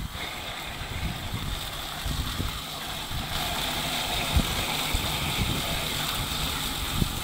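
Electric soy milk grinder running steadily with its stones set to the tightest gap, so the soybeans barely feed and the motor runs under load, while soy milk splashes from the spout onto a drain grate. A high whine grows stronger about three seconds in, and there are a couple of light knocks.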